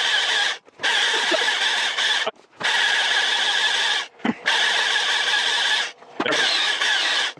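STIHL MSA 300 battery chainsaw at full power, its chain cutting through logs with a steady high whine. It comes in short stretches broken by brief gaps about every two seconds.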